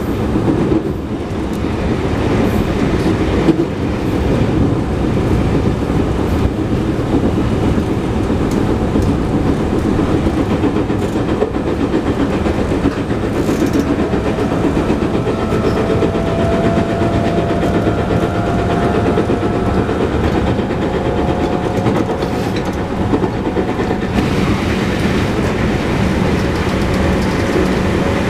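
Running noise heard inside a JR West 221 series electric train car at speed: steady wheel and rail rumble with clickety-clack, and the thump of a flat spot on a wheel. From about halfway through, a faint tone rises slowly in pitch.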